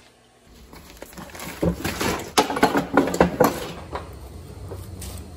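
Knocks as a phone is set down, then a run of irregular taps and clunks from footsteps and handling on a hard floor, over a low steady hum.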